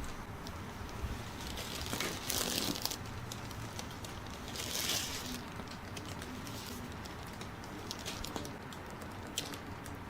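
Hands massaging a person's back: rubbing and swishing over skin and clothing, with crinkling, louder twice, once about two seconds in and again near the middle.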